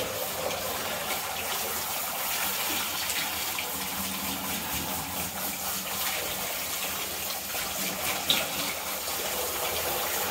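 Handheld shower head spraying a steady stream of water onto a dog's thick wet coat in a bathtub, with one brief knock about eight seconds in.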